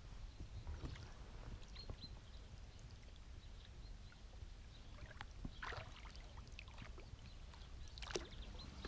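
Light water splashing and lapping at a pond's reedy edge over a low rumble of wind on the microphone, with two louder splashy clicks about five and a half and eight seconds in.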